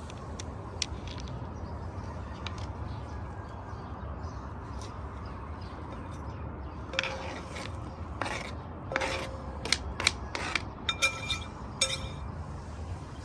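Kitchen utensils knocking and clinking, about ten sharp knocks in the second half, some with a short ringing note, over steady outdoor background noise.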